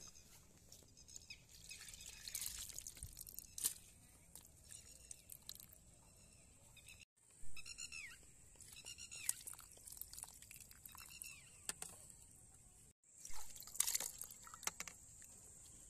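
Muddy water splashing and trickling out of a drainage pipe into a shallow pit as fish slide out with it, loudest a couple of seconds before the end. Earlier, scattered crunching splashes in wet mud, and in the middle a bird calling in short repeated notes. The sound cuts off abruptly twice.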